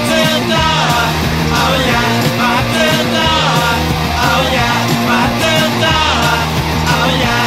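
Rock song with a singing voice over a steady bass line.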